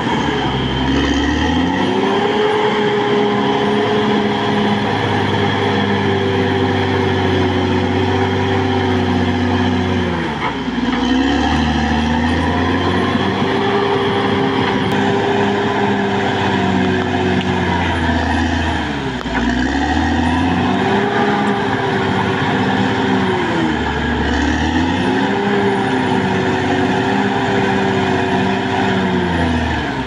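Caterpillar D6R XL bulldozer's diesel engine running hard as it pushes soil with its blade. The engine note holds high, then sags briefly and climbs back, four times at intervals of about five to nine seconds.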